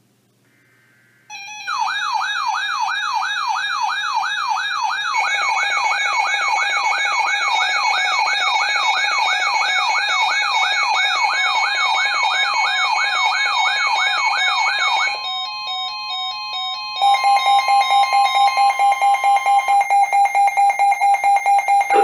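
Several NOAA weather alert radios sound their alarms together, marking a newly received weather alert. A warbling siren sweeps up and down about two and a half times a second and is joined by steady alert tones. About fifteen seconds in the warble stops, and soon after a rapid pulsing beep alarm starts.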